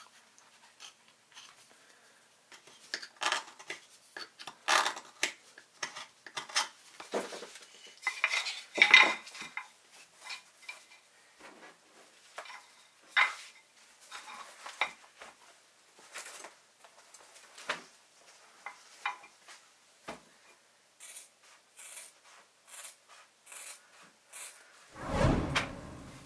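Wooden dowels, a steel saw blade and small wooden and metal fittings being handled and set down on a workbench: scattered clicks, knocks and light clinks. A dull thump comes near the end.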